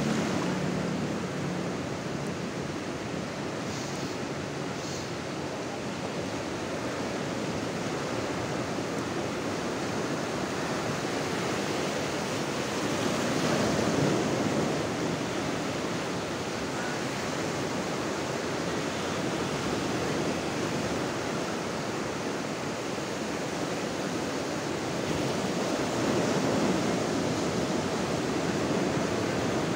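Ocean surf breaking and washing up a sandy beach, a steady rush of foaming water that swells louder as waves break about halfway through and again near the end.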